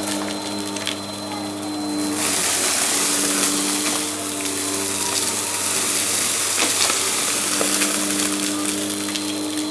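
Bissell bagless vacuum cleaner running with a steady motor hum as it is pushed over a rug. From about two seconds in a loud rush of air joins the hum, with scattered sharp ticks of confetti and glitter being sucked up through the head.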